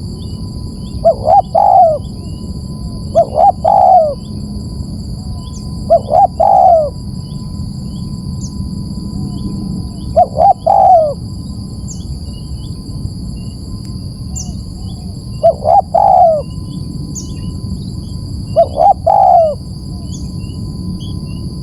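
Spotted dove cooing: six phrases a few seconds apart, each two short coos followed by a longer one. Steady high-pitched tones and faint small-bird chirps run underneath throughout.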